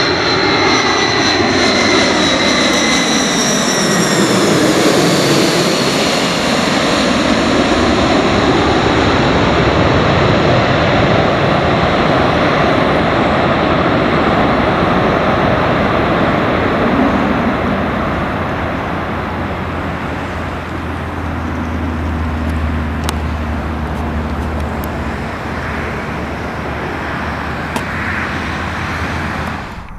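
Four-engined Boeing E-4B (747-200) jet on final approach passing low overhead, its turbofans running loud. The engine whine falls in pitch over the first few seconds as it goes by, and the jet noise then fades gradually as it moves away to land.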